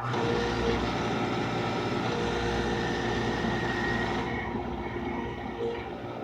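Beckett oil burner running after a reset: the motor drives the blower and fuel pump with a steady hum, low rumble and hiss, and the hiss above it drops away about four seconds in. The burner is not lighting, which the owner puts down to heating oil gelled by the cold.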